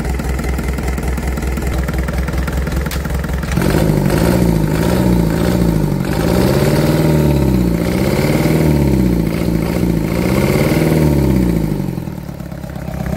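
Mitsubishi 4D31 four-cylinder diesel engine running bare on the ground. It idles steadily, then about three and a half seconds in it is revved up and down several times in a row. Near the end it drops back to idle.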